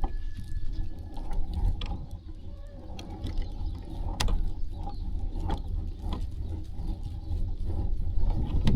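Sheep moving about and grazing: irregular clicks and knocks over a steady low rumble, with no bleating.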